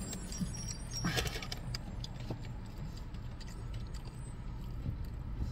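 Steady low rumble inside a parked car's cabin, with a few light clicks and rustles from food packaging being handled.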